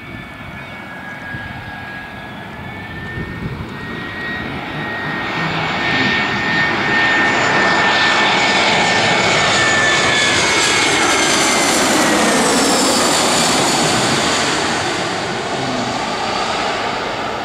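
Airbus A320 jet airliner flying low overhead on landing approach: its engines' rushing noise and high whine swell, peak about two-thirds of the way through as it passes over, with the whine dropping in pitch, then begin to fade.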